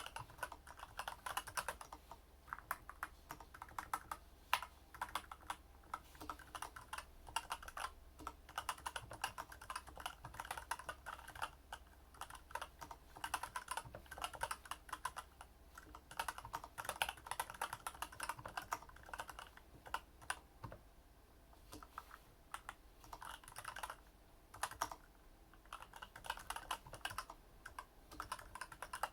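Typing on a Varmilo keyboard with Daisy switches: a fast, irregular run of keystroke clicks that thins out briefly a little past two-thirds of the way through.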